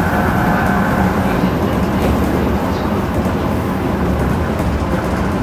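Steady low rumble of a JR Central 211 series 5000 electric train heard from inside the car, with a faint whine that fades out about a second in.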